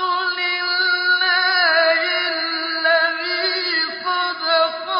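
A man reciting the Quran in melodic tajwid, holding long drawn-out notes with ornamented turns in pitch.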